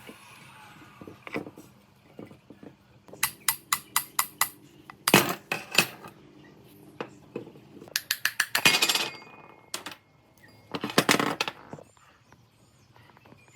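Metal parts and hand tools clinking and clanking on a workbench in several bursts of sharp clicks, with a quick run of light clicks and then a few louder clanks.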